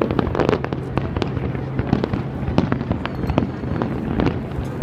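A fireworks display going off: many sharp bangs and crackles in quick succession, several a second, over a continuous rumble.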